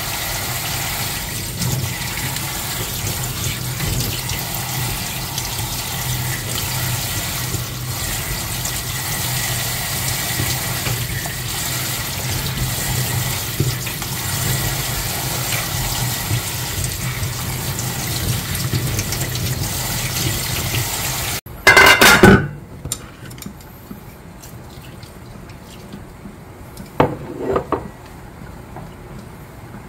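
Kitchen faucet running onto perilla leaves and lettuce being rinsed by hand in a plastic bowl, a steady rush of water that cuts off abruptly about two-thirds through. A loud noise lasting about a second follows, then a few faint handling sounds.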